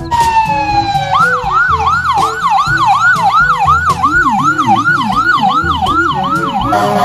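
Ambulance siren in a fast yelp. A falling tone in the first second gives way to quick repeated rising sweeps, about two to three a second. Background music plays underneath.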